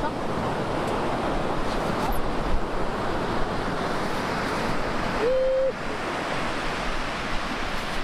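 Ocean surf washing on a beach, with wind buffeting the microphone; a brief steady tone sounds about five seconds in.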